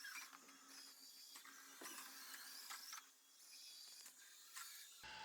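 Faint mechanical whirring with light clicks from the SwitchBot S10 robot vacuum-mop as it drives itself to its water station, with a low steady hum.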